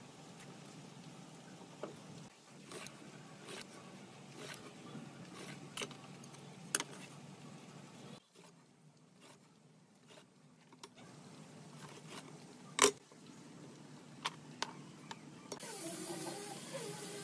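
Workshop handling sounds: scattered light knocks and clicks of wood and tools over a low steady hum, with one sharper, louder knock about two thirds of the way through. A steady hiss starts near the end.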